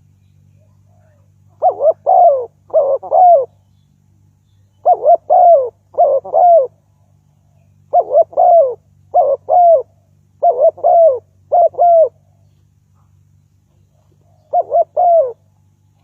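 Spotted dove cooing: five phrases of a few quick, low coos each, separated by pauses of a second or two, over a faint steady low hum.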